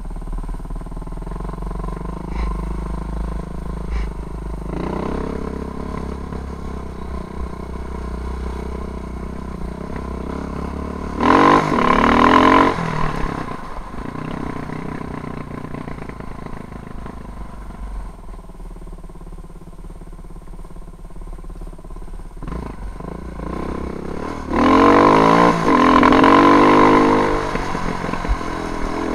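KTM off-road motorcycle engine running at low revs along a rough dirt track. It opens up hard twice, about eleven seconds in and again near the end, with the pitch climbing each time as it accelerates.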